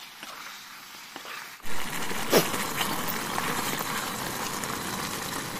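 Chicken gravy sizzling and bubbling in a frying pan, with a spatula scraping against the pan. The sizzle becomes suddenly much louder about a second and a half in, with a sharp scrape a little later.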